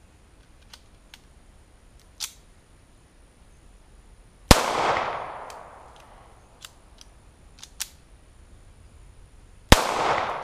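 Two single 9mm pistol shots from a Zastava M88A, about five seconds apart, each followed by a long rolling echo that fades over about a second. Fainter clicks fall between them.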